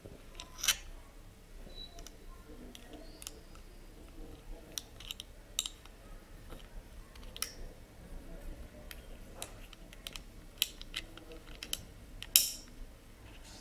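Scattered small metal clicks and taps from an M6 spanner working the nut that holds an MK8 hot end to its extruder carriage plate, with a sharper click just under a second in and another near the end.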